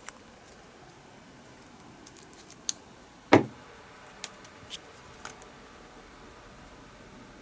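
Small hand tools working thin stainless steel parts for a lure's tail blade: a few light metallic clicks, one sharper, louder snap a little over three seconds in, then more light clicks.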